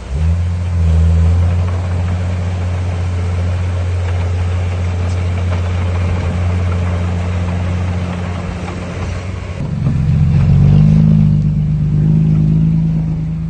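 Diesel engine of heavy construction machinery running steadily. About ten seconds in, its pitch shifts higher and it grows louder as the engine takes on more throttle.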